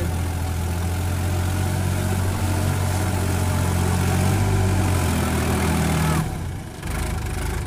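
Sonalika farm tractor's diesel engine running steadily under load as the tractor drives through deep mud on cage wheels. The steady engine note drops away abruptly about six seconds in.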